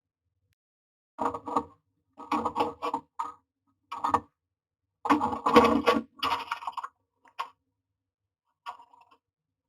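Common mynas inside a nest box: irregular clusters of short, harsh, scratchy bursts, with the box's hollow ring on each one, separated by silence.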